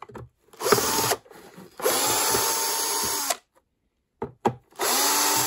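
Power drill with a screwdriver bit backing out the screws that hold a blade hand dryer's internal unit. A short blip about half a second in, then two runs of about a second and a half each, the last starting near the end. In each run the motor's whine climbs quickly and then holds steady, with a few clicks of the bit in the screw heads between runs.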